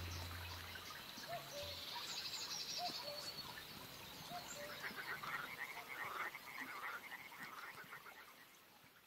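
Faint wetland ambience of frogs calling, with short repeated calls and a stretch of rapid pulsing trills, plus bird chirps, fading out near the end. The tail of the background music dies away in the first second.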